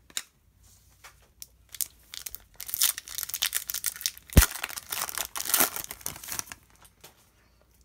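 A trading-card pack wrapper being torn open and crinkled by hand, in short rustling tears with one sharp snap about halfway through.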